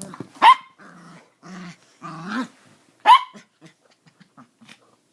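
Dogs play-fighting: repeated growling, broken by two loud sharp barks about half a second in and about three seconds in, then a few light clicks near the end.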